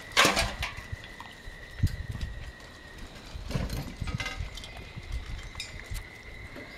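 Ten-week-old Samoyed puppies playing, with scattered short yips and scuffling. The loudest sound is a sharp burst just after the start.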